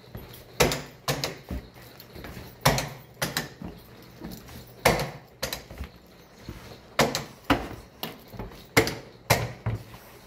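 Sharp clacks in pairs, about half a second apart, five pairs at a steady two-second spacing, as the player stations of an old water race arcade game are switched on one after another.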